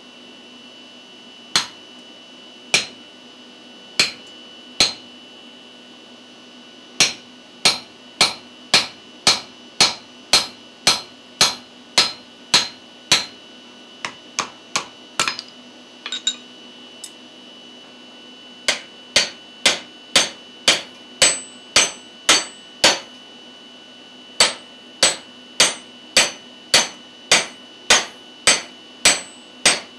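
Hand hammer striking a punch and drift driven into a hot railroad spike, punching the axe's eye. The blows are sharp metallic strikes, each with a brief ring, in runs of about two a second, with a few lighter taps in the middle.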